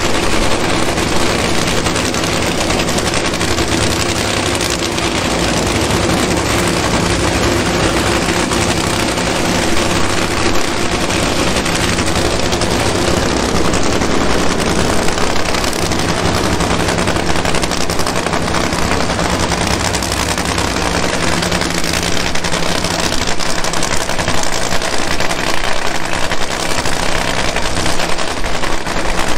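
Supercharged nitromethane-burning drag racing V8 running with a loud, rapid crackling rattle; its note shifts about halfway through.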